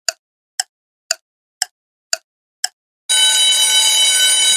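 Quiz countdown timer sound effect: clock-like ticks about two a second, then about three seconds in a loud, steady electronic alarm tone marks time up.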